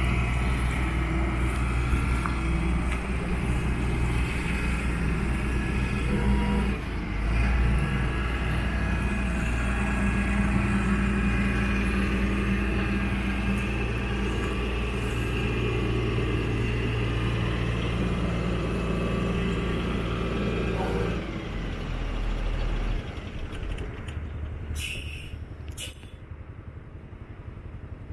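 2015 Kalmar Ottawa yard truck's diesel engine running steadily, then shutting off about three quarters of the way through. Two short hisses follow.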